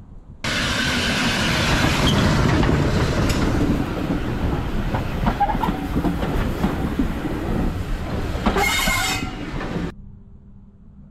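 Heritage railway passenger coaches passing close by: a steady rumble of wheels on rails with scattered clicks from the rail joints. A brief high-pitched tone sounds near the end, just before the sound cuts off abruptly.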